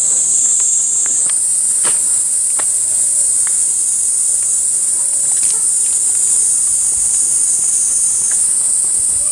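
A loud, steady, high-pitched drone of an insect chorus in the trees. Its pitch steps up slightly about a second in and drops back near the end.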